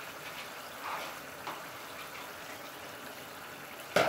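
Beef in soy-sauce gravy simmering in a frying pan, a steady bubbling hiss, with a sudden loud splash near the end as cornstarch slurry is poured in to thicken the sauce.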